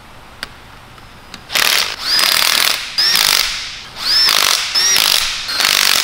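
Electric impact wrench running down the bolts of a Salisbury differential case in short hammering bursts, one bolt after another, about six in all, starting about a second and a half in. Each burst carries a motor whine that rises and falls.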